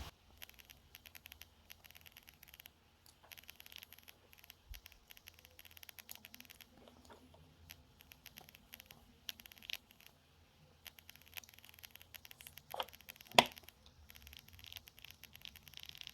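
Faint scraping and small clicks of metal hand tools working on a tiny alarm-clock movement, prying at the small nut that holds the hands. Two sharper clicks come about 13 seconds in.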